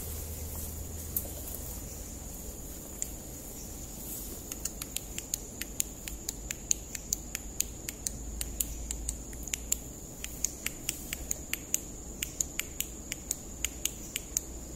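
Steady high-pitched drone of night insects such as crickets. From about four seconds in it is joined by a long run of sharp clicks, about three to four a second, uneven in strength.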